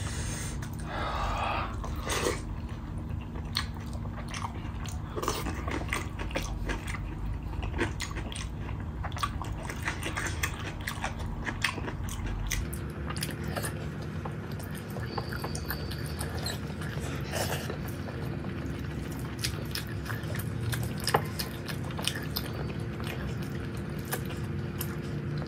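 Eating sounds from close by: a person chewing rice and fried buffalo meat eaten by hand, with many small, irregular wet clicks and smacks.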